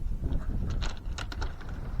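Wind buffeting the microphone as a steady low rumble, with a few short sharp clicks about a second in.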